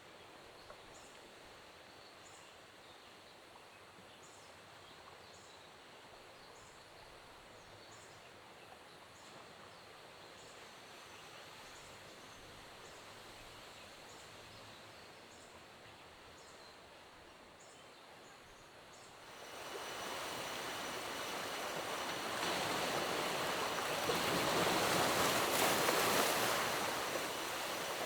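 Faint outdoor ambience with a high chirp repeating a bit more than once a second. About two-thirds of the way in, it gives way suddenly to the loud, steady rush of falling water, which swells and then eases slightly near the end.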